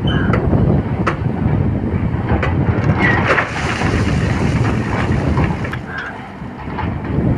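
Volvo excavator's diesel engine working under load, with scattered sharp knocks and clanks as the bucket handles iron ore.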